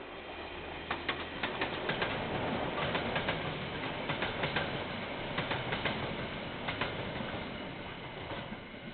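A train passing on the line, its wheels clicking over the rail joints in quick groups of two or three. The rolling noise swells to a peak midway and fades towards the end.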